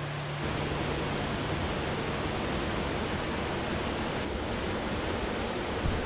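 Steady rushing water: an even, toneless hiss that holds at one level.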